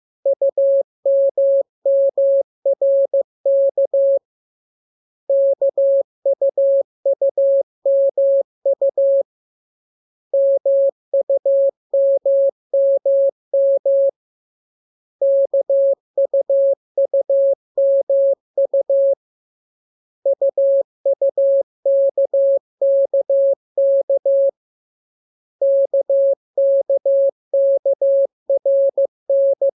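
Morse code practice signal: a single steady tone keyed on and off in dots and dashes, sent in groups of characters with a pause of about a second between groups. It is a practice radiogram of the lesson's letters (K, M, U, R) for learning to copy CW by ear.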